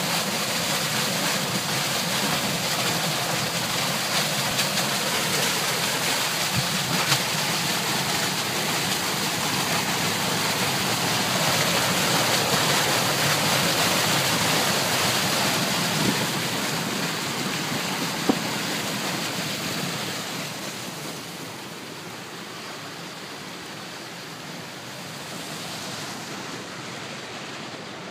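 Storm water rushing and churning into a catch basin under a steel grate: a steady, loud rush of falling, splashing water. It is the roof's held rain water suddenly draining through a freshly thawed, previously frozen underground rain leader. The rush drops noticeably in level about three-quarters of the way through.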